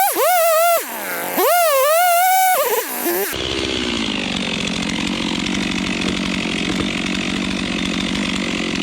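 A high, wavering musical tone for the first three seconds, then a Stihl chainsaw running steadily at full throttle, cutting through the trunk of a dead oak. The saw stops abruptly at a cut.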